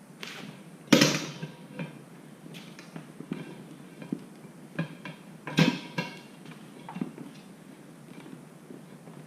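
Sharp metal clanks and knocks of tire irons against a motorcycle wheel rim while levering the front tire's bead on, the loudest about a second in and two more close together just past the middle.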